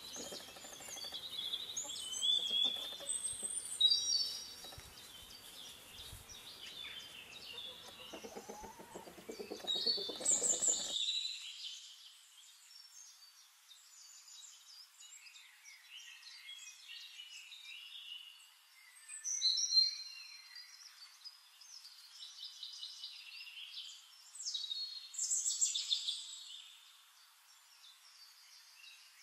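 Birds chirping and singing: a busy run of short high calls and trills, with louder bursts every few seconds. A low background murmur under the birds cuts off suddenly about eleven seconds in.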